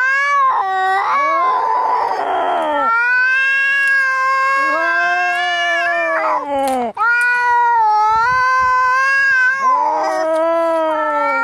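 Cats fighting: long, drawn-out yowls that rise and fall in pitch, two voices at times overlapping, with a short hiss about two seconds in.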